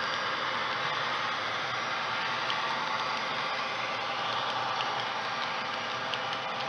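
HO-scale model freight train running along the track: a steady whir from the diesel locomotive's motor and the rolling wheels, with a few faint clicks.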